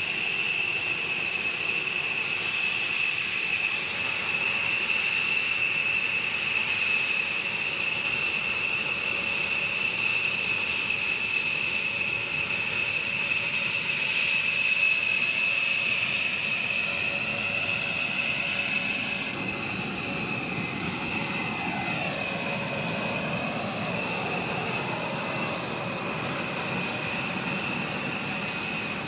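Rockwell B-1B Lancer's four General Electric F101 turbofan jet engines running at taxi power: a steady high turbine whine over jet rumble. About two-thirds of the way in the rumble swells and a tone sweeps down and back up.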